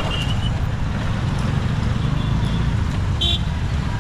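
Busy road traffic at a level crossing: motorcycles and scooters running and passing in a steady low rumble. Short, high horn toots sound right at the start and again about three seconds in.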